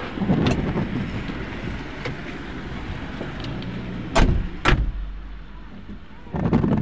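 Heavy rain falling on a car, with traffic passing on the wet road. Two sharp knocks come about four seconds in.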